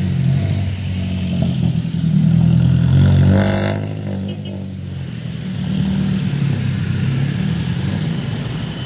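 Road traffic passing close by over the crossing: car and small pickup-truck engines, the loudest a close pass about three and a half seconds in, with motorcycle engines approaching near the end.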